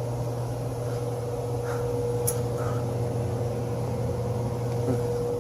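Furnace blower motor running with a steady hum and a constant whining tone, and one faint click about two seconds in.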